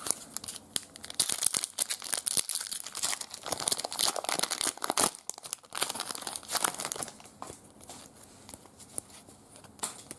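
Foil trading-card pack wrapper being torn open and crinkled in the hands, a dense run of crackles that thins to a few small clicks after about seven seconds.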